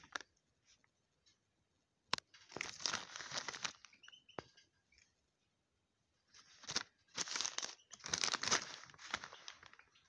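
Clear plastic bags crinkling and rustling as they are handled, in two spells, the second longer, with a sharp click about two seconds in.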